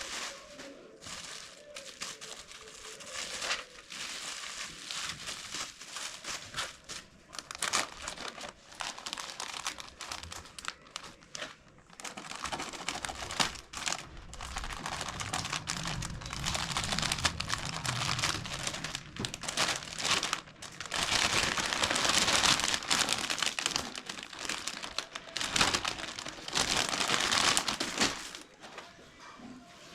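Packaging being handled and unwrapped during an unboxing: crinkling and rustling plastic and wrapping with many quick irregular crackles, busier and louder in the second half.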